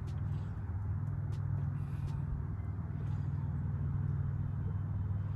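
Steady low rumble of outdoor background noise at an even level, with no distinct events.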